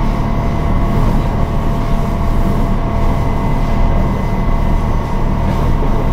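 Kyoto Tango Railway 'Tango no Umi' diesel railcar running at speed, heard from inside: the steady drone of its underfloor diesel engine and running gear, with faint steady whining tones over it.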